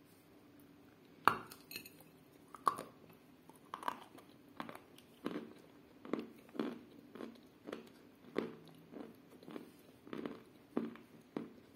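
A person bites into a piece of sawn white chalk coated in clay paste, with one sharp crack about a second in. Crunching chews follow, a little under two a second.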